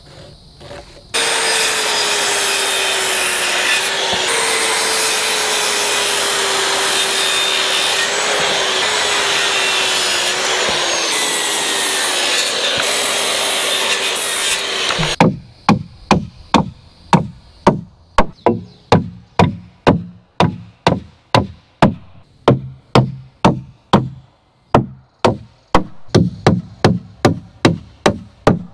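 Corded circular saw cutting green, full-dimension 2x4 lumber, its motor pitch sagging under load for about fourteen seconds. Then hammer blows driving nails into the framing, about two a second, with short pauses.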